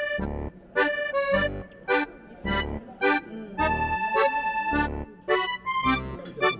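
Background music: a pitched melody over a steady bass beat of about two beats a second.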